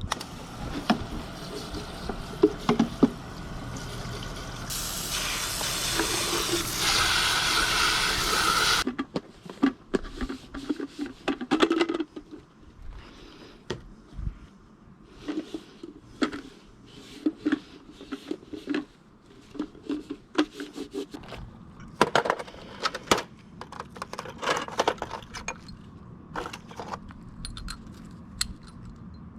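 Engine oil running out in a steady stream during an oil change, growing louder until it stops abruptly about nine seconds in. Scattered short metallic clinks and taps of tools and parts follow.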